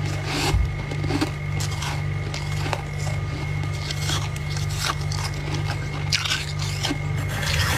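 A person biting and chewing freezer frost: repeated irregular crisp crunches and squeaks close to the microphone, over a steady low hum.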